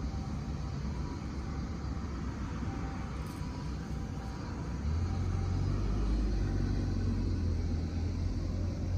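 A steady low rumble that grows louder about five seconds in.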